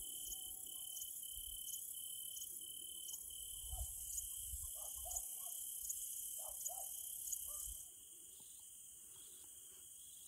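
Insects chirping in a steady pulsing rhythm, about two chirps a second, with a high hiss that drops away about eight seconds in.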